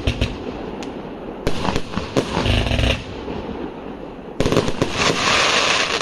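Consumer firework battery (208-shot, 1.2-inch cake) firing. About a second and a half in comes a quick string of bangs, and at about four and a half seconds a denser volley starts suddenly and runs on as a loud crackling hiss.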